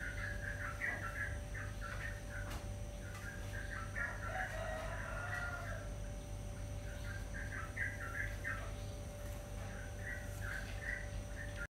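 Chickens clucking in four bouts of quick, short calls, over a faint steady hum.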